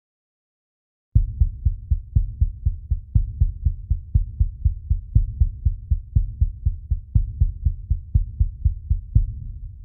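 Heartbeat sound effect: a quick, steady run of deep, low thumps, several a second, with a stronger beat about once a second. It starts about a second in and fades near the end.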